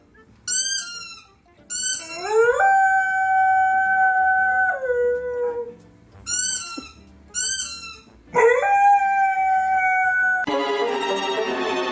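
Dog howling: a few short rising yips, then a long held howl that drops in pitch near its end. The pattern repeats, with a second long howl beginning about eight seconds in. Music comes in near the end.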